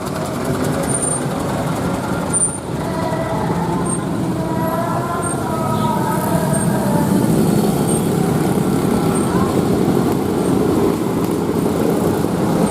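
Steady running of a new bus's diesel engine on its break-in run, with road noise, growing a little louder.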